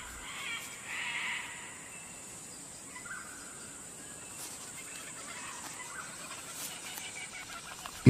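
Faint tropical forest ambience over a steady high hiss, with a few soft bird calls; the clearest call comes about a second in.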